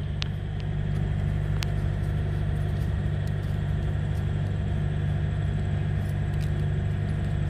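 An engine idling steadily as a low hum, with a few faint metallic clicks as hands work a loosened lug nut on a semi trailer wheel.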